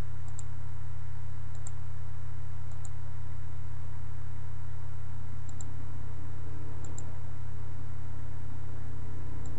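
A steady low electrical hum, the loudest thing throughout, with about six faint, sharp computer mouse clicks scattered through it, some as quick double ticks, as left clicks place points.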